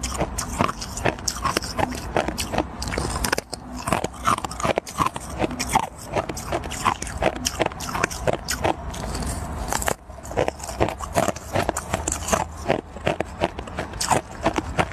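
Close-miked ice eating: a thin disc of ice bitten at its edge and chewed, a quick run of crisp cracks and crunches, with short lulls about three and a half and ten seconds in.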